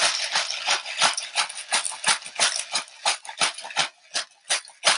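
Hand-twisted pepper mill grinding peppercorns: a quick, regular crunching at about five strokes a second, thinning out near the end.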